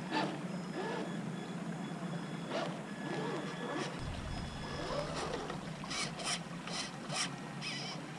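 Traxxas TRX-4 RC crawler's electric motor and gears whining in short spells as it crawls over grass and dirt, amid outdoor background noise. A cluster of sharp clicks comes near the end.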